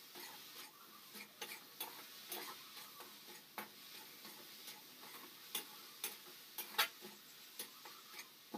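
Metal spatula scraping and tapping against an aluminium kadhai while stirring crumbled curd roasting on a gas stove: irregular light clicks and scrapes, a few a second, over a faint hiss.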